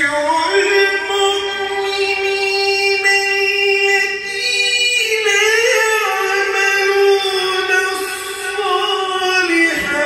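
A man's voice in melodic Quran recitation (tilawat), drawn out in long held notes with slow ornamental turns. A short breath break comes near the end before the next phrase starts.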